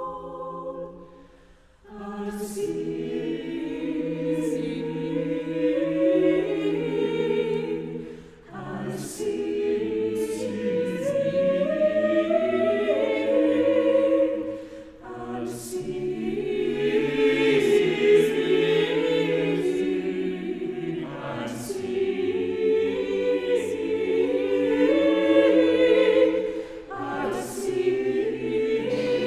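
Mixed chamber choir singing unaccompanied, in phrases of about six seconds with brief breaks between them.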